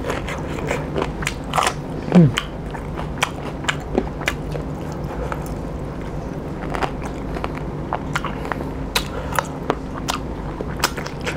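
Close-miked chewing of roast pork, with many short wet clicks, lip smacks and light crunches from the mouth. A brief falling hum from the eater about two seconds in.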